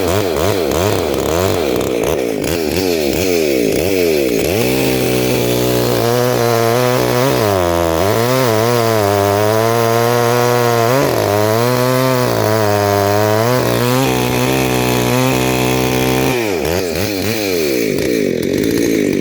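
A two-stroke chainsaw running while cutting a tree. Its engine pitch dips and recovers again and again as the chain is loaded in the wood, and it holds steadier through the middle.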